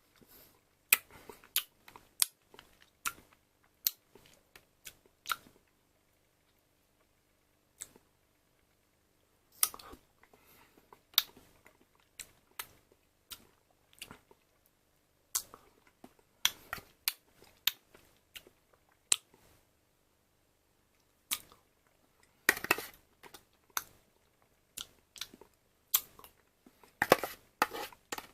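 Someone eating a yogurt: a series of short, irregular clicks and smacks, with a few seconds' lull before the middle and denser clusters near the end.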